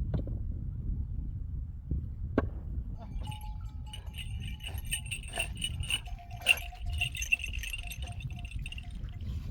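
Metal livestock bells on the flock, clinking and jingling irregularly from about three seconds in, over a steady low rumble.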